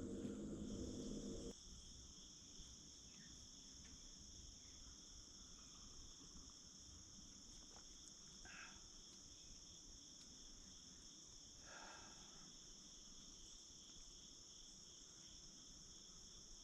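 Faint, steady chorus of crickets or similar insects, a continuous high trilling, with a low hum that cuts off about a second and a half in and a couple of faint short calls later on.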